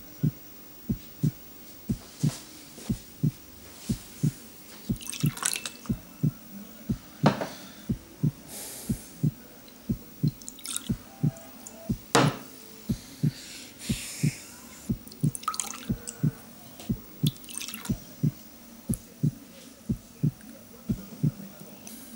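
Heartbeat sound effect: steady low thumps about two a second. Over it come a few sharp knocks and brief hissing noises.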